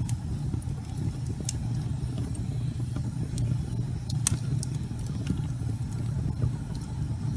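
Logs burning in a fireplace: a steady low roar of the fire with scattered sharp crackles and pops at irregular moments, the loudest about four seconds in.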